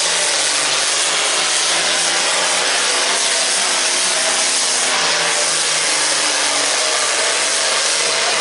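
Diesel farm tractor engine running flat out under heavy load, pulling a weight-transfer sled in a tractor pull. It makes a loud, rough, steady roar over a held engine note.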